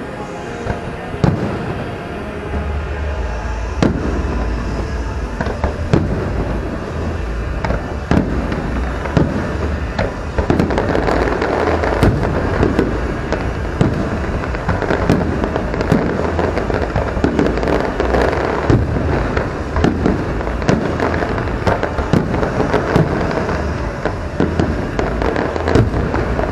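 Aerial fireworks shells bursting in quick succession: sharp bangs several times a second over a continuous low rumble and crackle, growing denser and louder after about ten seconds.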